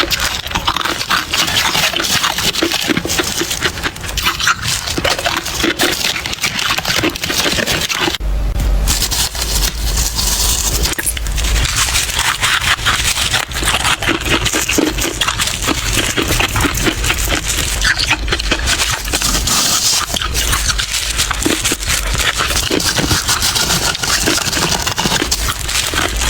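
Freezer frost crunching and crackling close to the microphone, in a dense, continuous run of small crisp cracks.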